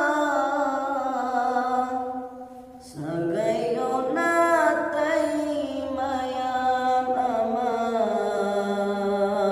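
A man singing a Manipuri naat, an Islamic devotional hymn, unaccompanied, in long held notes that glide slowly in pitch. One phrase fades out about two seconds in, and after a short breath a new phrase begins about three seconds in.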